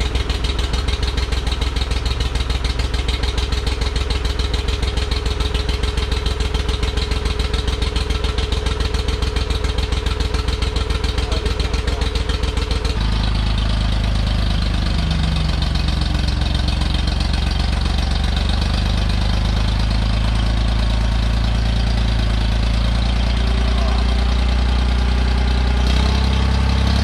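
Ford 3550 industrial tractor's three-cylinder gasoline engine running, with an even rapid pulsing. About halfway through the sound changes abruptly to a smoother, deeper running.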